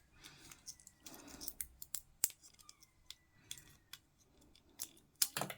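Scattered light clicks and taps of small hard plastic miniature parts being handled, pulled apart and pressed back together.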